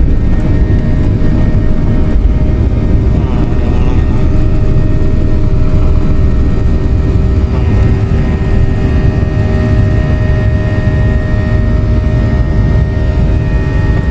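Boeing 737-800 jet engines at takeoff thrust, heard inside the cabin: a loud, steady rumble with whining tones as the airliner rolls down the runway and lifts off. A higher whine stands out from about halfway through.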